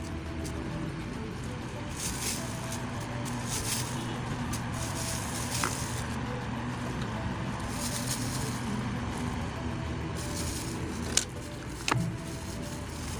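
Brushing and rustling as a comb and a plastic-gloved hand work keratin treatment through wet hair, over a steady low hum. Two sharp clicks near the end.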